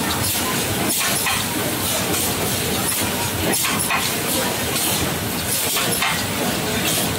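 Ice lolly production line machinery running: a steady, dense mechanical noise with irregular clacks from the conveyors and handling mechanism.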